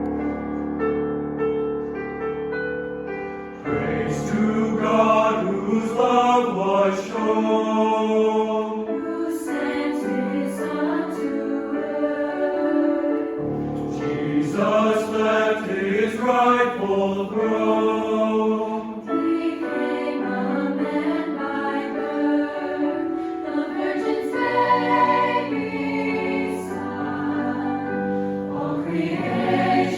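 A choir singing a Christmas hymn, coming in about four seconds in over a fading piano chord.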